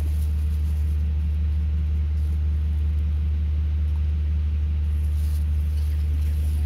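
A steady, low-pitched engine hum running at an unchanging speed.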